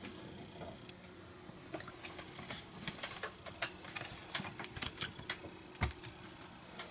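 Scattered light clicks, taps and rustles of a framed picture being fetched and handed over, with a sharper knock shortly before the end, over a faint steady hum.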